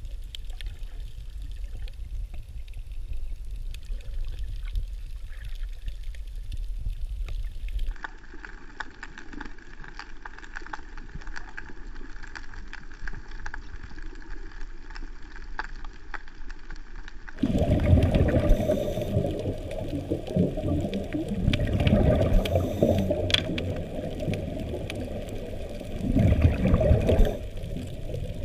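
Water sloshing and bubbling as picked up by a camera underwater. The sound changes abruptly twice, and in the last third it gets much louder, with uneven bubbling surges.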